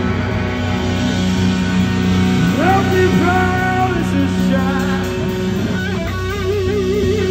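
Live rock band playing, led by electric guitar over drums. About two and a half seconds in, held notes bend upward, and near the end a held note wavers with a wide vibrato.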